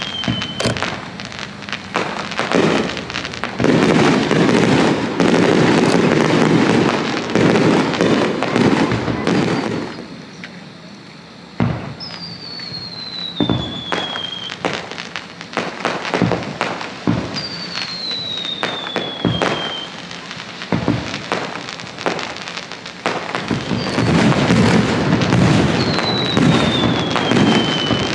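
Fireworks display: aerial shells going up and bursting, with dense crackling, many sharp reports and several whistles that each fall in pitch over about two seconds.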